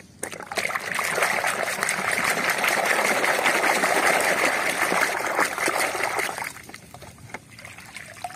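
A hand sloshing and scrubbing a muddy plastic toy in a basin of water, with continuous splashing for about six seconds. Near the end it drops to a quieter trickle as the toy comes up out of the water.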